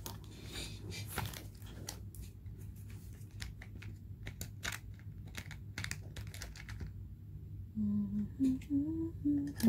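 Sealing wax beads clicking and rattling against a plastic compartment box as a hand sorts through them, then a person humming a tune from about eight seconds in.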